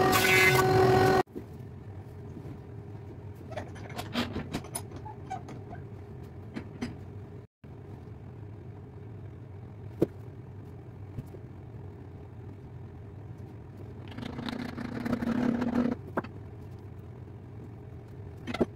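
A combination jointer-planer running loudly for about the first second, cut off abruptly. Then a low workshop background with scattered light knocks and taps, a soft-faced mallet tapping splines into the mitered corners of a jatoba frame, with a sharper tap about ten seconds in and a rustling noise of about two seconds near the end.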